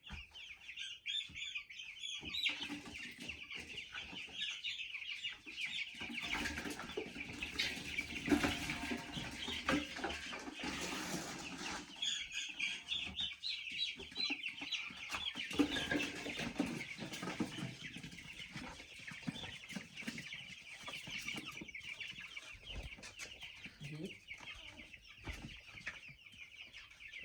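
A flock of two-week-old chicks peeping continuously, many short high chirps overlapping, with scattered knocks and rustling.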